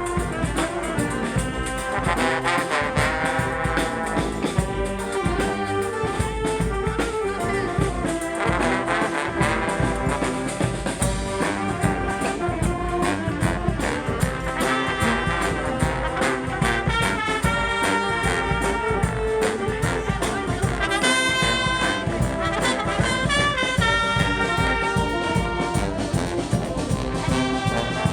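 Brass street band playing live: trumpets, trombones and saxophones over a steady drum beat, with horn lines and held notes moving on top.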